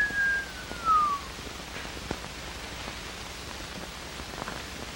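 A long whistled note that slides down in pitch and stops about a second in. After it there is only the steady hiss of an old soundtrack, with a few faint ticks.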